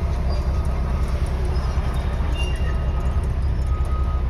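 Steady low rumble of a stopped vehicle's engine idling, heard from inside the cab.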